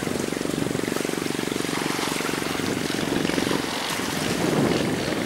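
Long-tail boat engine running steadily with a fast, even pulse. Near the end it turns rougher.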